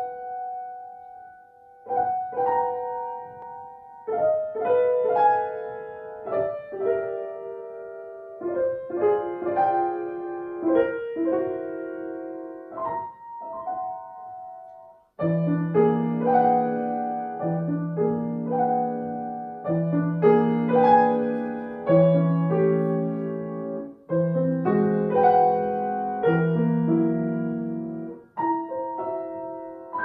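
Grand piano played solo, mostly in the middle and upper register. About halfway through the music almost stops for a moment, then lower notes join in with chords repeated about every two seconds.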